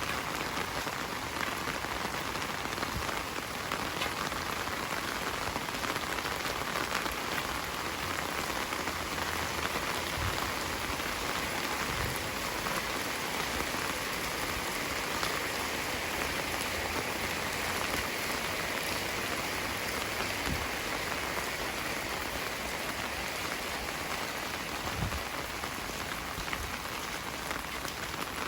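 Heavy rain falling steadily, a dense even hiss, with a few soft low thumps now and then.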